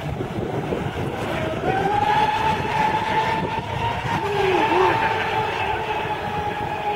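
Radio-controlled racing boats running flat out, their engines a steady high-pitched whine that comes in about two seconds in, with a second, lower engine note wavering near the middle. Wind noise on the microphone underneath.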